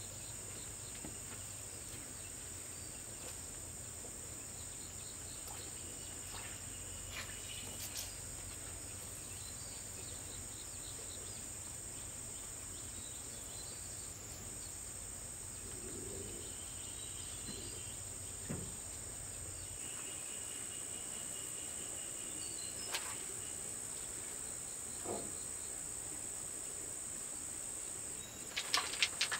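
Steady high-pitched chirring of insects, with a few scattered knocks of stones being worked into wet mortar. Near the end, a brief clatter of pebbles as a hand rummages in a plastic bowl of stones.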